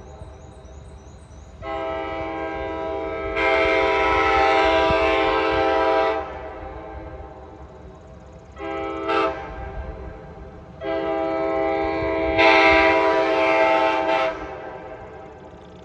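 Nathan K5LA five-chime air horn on an Amtrak F40PH locomotive, sounded in three blasts: long, short, long. Each long blast starts softer and swells to full chord partway through.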